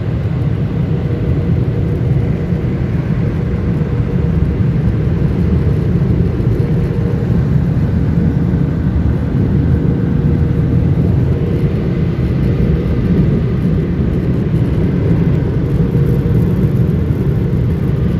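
Car wash blower dryers blowing air over the car, heard from inside the car: a loud, steady rumble with a thin steady whine that fades out about halfway through.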